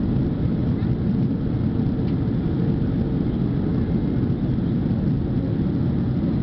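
Boeing 767-300 passenger cabin in flight: a steady low drone of jet engines and airflow heard through the cabin, even in level throughout.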